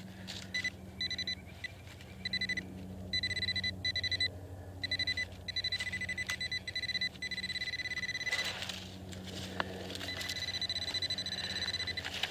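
White's Bullseye TRX pinpointer sounding its steady, high electronic alert tone in repeated on-and-off stretches, some short and some a couple of seconds long, as it sits close to a buried metal target. A brief scuff of soil comes about eight seconds in.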